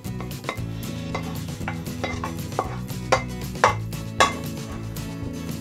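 Wooden spatula scraping and knocking against a wok as stir-fried chicken and vegetables are pushed out onto a plate: a run of short scrapes and taps about every half second, the sharpest knocks about three to four seconds in.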